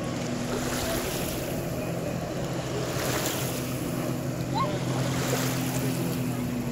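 Jet ski engine running with a steady hum as it powers a flyboard through its hose, over the rushing hiss of the flyboard's water jets.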